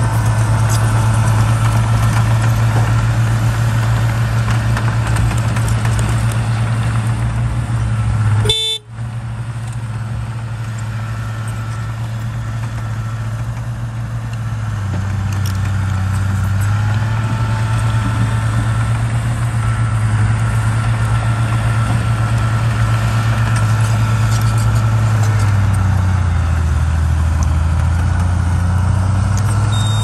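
Crawler bulldozer's diesel engine running steadily as it pushes rocky fill, its note dipping lower twice. A brief sharp sound and a momentary drop in the sound come about nine seconds in.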